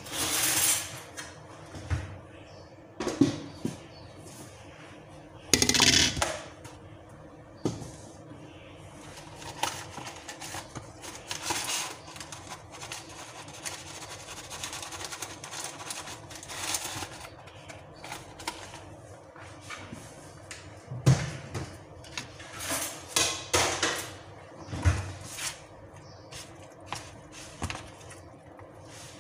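Plastic food tubs and a metal spoon handled on a kitchen counter: a series of knocks and clatters as containers are moved and set down, and rustling as seasoning is shaken from a small cardboard box into a tub of marinade.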